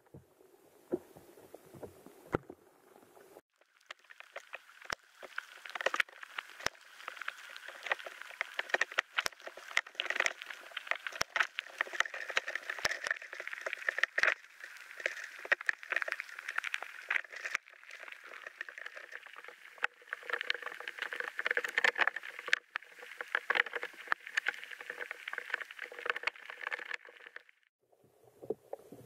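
Muffled water noise and many small clicks picked up by an underwater camera in a stream. From about four seconds in until near the end the audio is fast-forwarded, so the water noise and clicks sound sped up and much higher-pitched.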